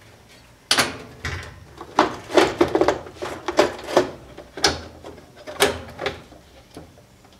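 Washing machine control panel being worked loose, lifted and tipped back: a run of sharp knocks, clicks and rattles.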